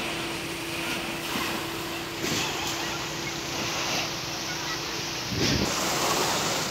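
Water jet from a fire hose spraying onto corrugated metal roofing, a steady hiss, with a steady hum underneath that stops a little over five seconds in, followed by a brief low rumble.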